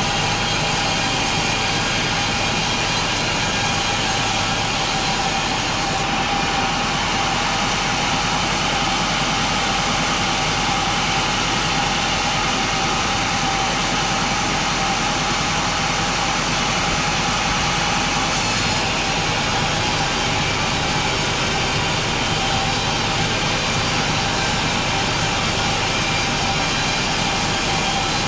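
Chainsaw running steadily under load as it saws through a very large pine log.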